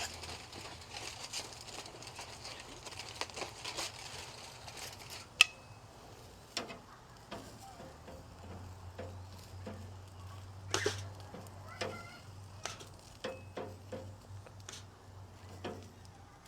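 Hot dogs and burgers sizzling on a charcoal grill, with scattered clicks and clinks of metal utensils handling the food. There is one sharp metallic clink that rings briefly about five seconds in.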